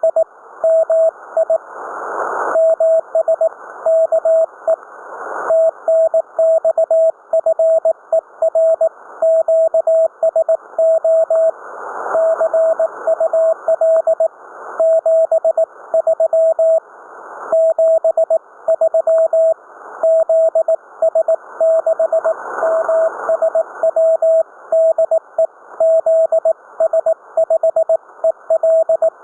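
Morse code (CW) on an amateur radio receiver: a single mid-pitched tone keyed in dots and dashes, over band-limited static hiss that swells each time the keying pauses.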